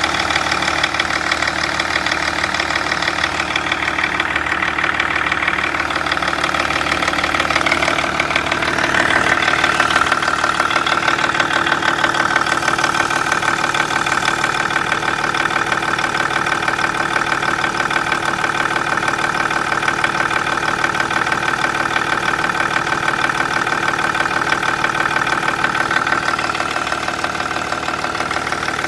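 BMW M57 straight-six diesel engine idling with a fast, even knock or clatter coming from where the engine meets the automatic gearbox. A higher steady tone comes in about eight seconds in and holds.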